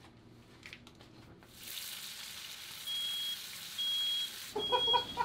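Bacon sizzling in a frying pan on a gas stove, the sizzle starting suddenly about one and a half seconds in. About three seconds in, a smoke alarm starts beeping: a high, steady beep about half a second long, repeating roughly once a second. The alarm is set off by smoke from the frying, with the galley ventilation not turned on.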